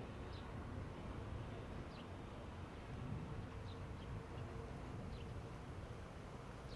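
Outdoor background of low steady rumble with short, high, falling chirps of small birds about once a second.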